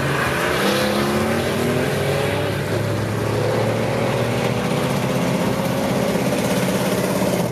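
Mercedes-Benz S65 AMG twin-turbo V12 at full throttle on a drag-strip pass, its pitch climbing through each gear. It upshifts about two seconds in and again about three seconds in, then pulls with a slowly rising pitch as it runs down the track.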